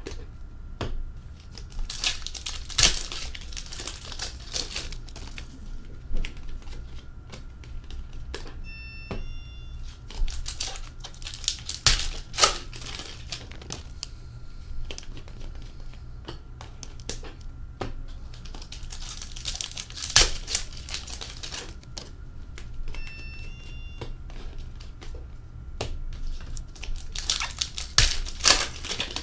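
Foil wrappers of hockey card packs being torn open and crinkled, in four bursts about eight seconds apart. Between them come light clicks and taps as the cards are handled and laid down.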